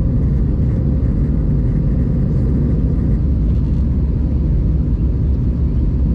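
Jet airliner cabin noise: a loud, steady low rumble of the engines and airflow heard from inside the passenger cabin.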